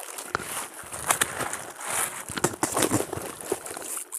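Wet gill net being hauled by hand out of the water into a small boat, with irregular splashing, water spilling off the mesh, and short knocks against the boat.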